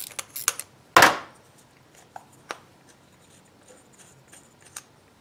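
Small-engine carburetor being handled and taken apart by hand: light clicks of small metal parts, one loud sharp knock about a second in, then a few faint ticks.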